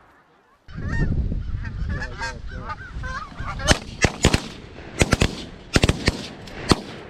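Canada geese honking as a flock works over the decoys, over a low rumble. Then comes a rapid string of about nine shotgun shots in quick succession, several close together in pairs.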